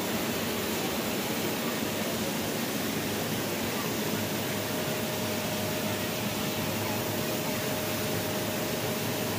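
Steady hiss of steam escaping from a standing Nilgiri Mountain Railway steam locomotive, with a faint thin steady tone joining about halfway through.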